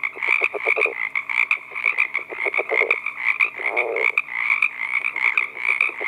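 Male California red-legged frog giving its advertisement call: three short bouts of low, rapid stuttering notes, the last more drawn out, over a steady higher-pitched pulsing background.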